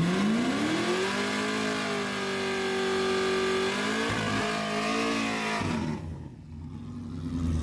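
Car engine revving: its note climbs over the first second and a half and is held high, shifts around four seconds, then falls away just before six seconds to a lower rumble.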